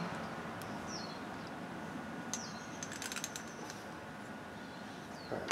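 Small metal clicks and taps as a nitro engine's crankcase and internal parts are handled during disassembly, with a quick cluster of clicks about three seconds in and a louder sharp knock at the end.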